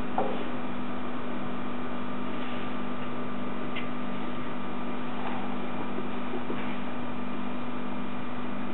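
Steady machine hum from a motor running at an unchanging pitch, with a few faint clicks.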